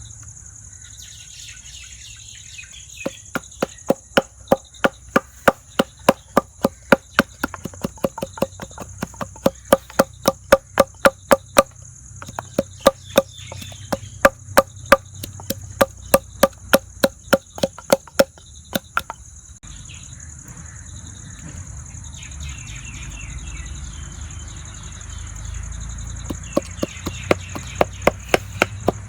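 Knife chopping steadily on a cutting board, about three strokes a second, in two runs with a long pause between them. A steady high-pitched insect drone runs underneath.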